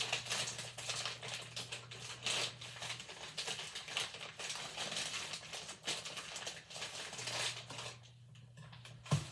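Clear plastic bag crinkling and crackling as rock-hard brown sugar is squeezed and crumbled by hand inside it: a rapid, irregular run of crackles that dies down about eight seconds in.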